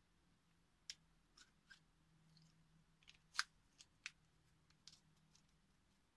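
A scattering of light clicks and taps from handling 3D-printed plastic parts, a drive shaft with universal joints and the differential housing, with the sharpest click about three and a half seconds in.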